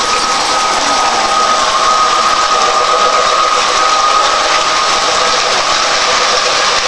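Garden-scale model train running on its outdoor track: a steady, high-pitched whine from the motor over a continuous hiss and rumble of the wheels.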